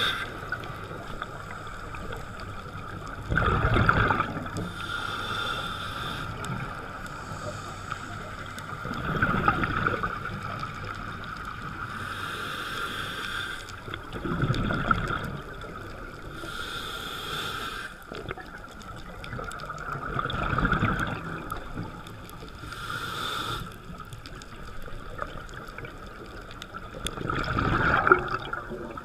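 Scuba diver breathing through a regulator underwater: five rushes of exhaled bubbles about every five to six seconds, with the hiss of an inhalation between them, over a steady hum.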